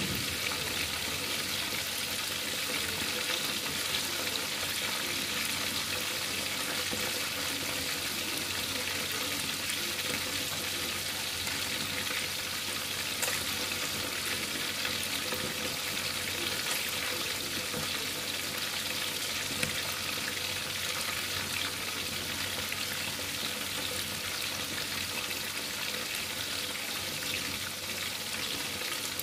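Whole tilapia frying in hot oil in a pan: a steady sizzle, with a few small pops.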